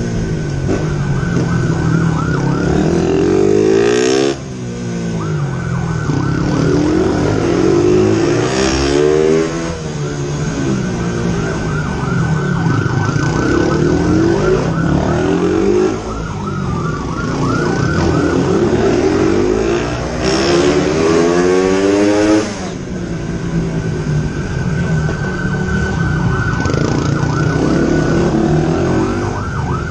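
Police motorcycle siren in a fast, repeating yelp over a motorcycle engine revving hard at speed. The engine climbs in pitch for several seconds and drops back sharply, again and again, as the rider accelerates and backs off through tight turns.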